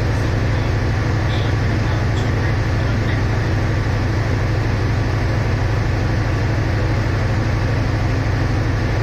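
Diesel power of a standing passenger train idling: a steady deep hum with a fast, even throb that does not change.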